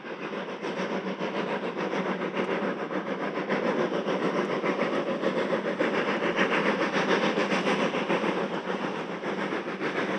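Steam locomotive working with a train, with a continuous chuffing, rumbling noise that grows louder over the first few seconds and then holds steady.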